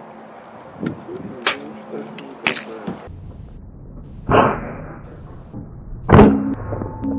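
PCP air rifle being handled and fired: a few light clicks, then two sharp shots about two seconds apart, the second the louder.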